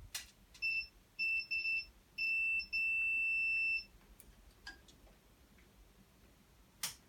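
Electrical tester's piezo beeper sounding as the bike's coil wires are probed with the ignition on: a few short high beeps, then one longer beep of about a second. A few sharp clicks are heard as well.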